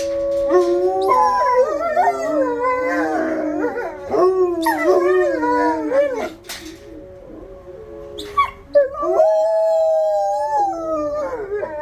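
Two dogs howling together in long, overlapping, wavering howls, set off by a tornado-siren test. The siren's steady tone sits faintly underneath. The howling eases off past the middle, then one long, steady howl comes near the end.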